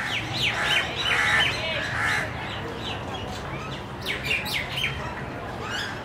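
Assorted birds chirping and squawking in short, overlapping calls, with a flurry of sharp calls about four seconds in.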